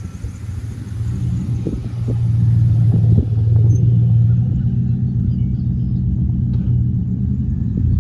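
Car engine and road rumble as a vehicle drives, a steady low drone that grows louder over the first couple of seconds.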